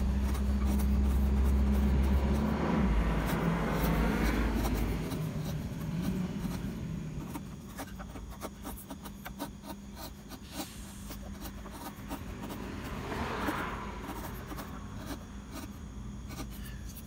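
Hand chisel paring and scraping mahogany in a dovetail socket, a run of short scraping clicks. A low rumble is the loudest sound for the first five seconds or so, then fades.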